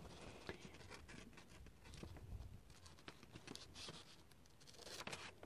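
Faint snips and paper rustle of small scissors cutting strips into the folded pages of a paperback book, with a slightly louder run of snips near the end.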